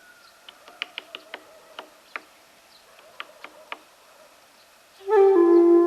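Woodpecker tapping on a tree: about ten sharp, irregular single knocks, not a drumming roll. About five seconds in, loud flute-like music comes in.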